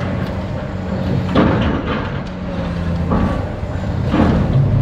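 Caterpillar long-reach demolition excavator's diesel engine running steadily under load, with three short noisy crashes of breaking material as its arm works through the building.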